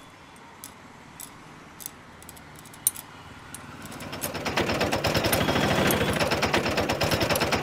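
A few faint clicks, then an auto-rickshaw's small engine draws near from about four seconds in. Its fast, even putter grows loud within a second and keeps on steadily.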